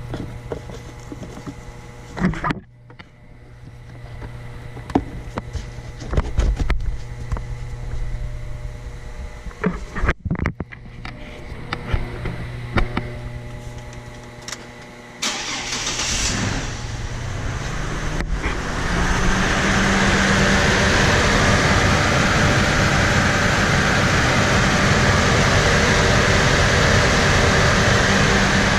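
2004 Chevrolet TrailBlazer's 4.2 L Vortec inline-six idling, with scattered clicks and knocks. About sixteen seconds in it is revved up and held at a steady higher speed, much louder.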